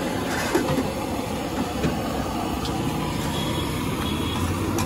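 A steady low rumble with a few light clinks and scrapes of a metal spatula and knife on an iron griddle, about half a second and two seconds in.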